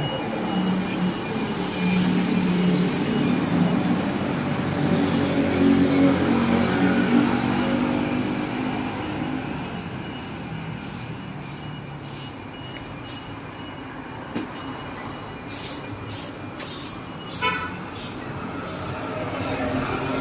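City street traffic: a heavy vehicle's engine passes close by, loudest over the first several seconds and then fading away, leaving lighter car and motorcycle traffic. A few short clicks sound near the end.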